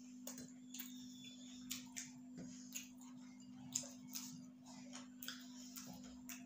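Eating noises of two people eating rice and chicken curry by hand: light, irregular clicks and smacks of chewing and of fingers and food against steel plates, about one or two a second. A steady low hum sits underneath.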